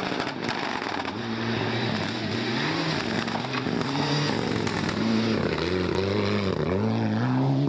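Rally car engine revving hard on a gravel stage, its pitch climbing and dropping again and again through gear changes and throttle lifts, over a hiss of tyres on loose gravel.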